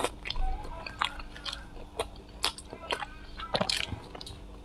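Close-miked chewing of braised pork belly: a scatter of short, irregular mouth clicks and smacks.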